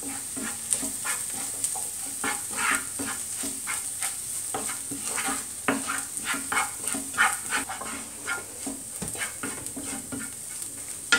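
A spatula stirring and scraping chopped onions with chilli powder as they fry in oil in a pan. The strokes come two or three a second over a steady sizzle.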